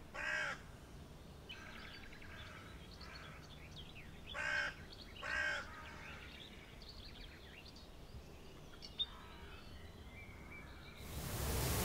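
A crow calling three harsh caws, one at the start and two close together about four and a half seconds in, over faint chirps of small birds. A steady rushing hiss fades in near the end.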